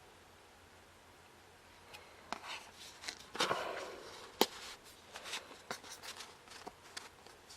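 Hands handling CD and Blu-ray box-set packaging: faint room tone, then from about two seconds in a run of rustling and sharp clicks, the loudest a single sharp click a little past the middle.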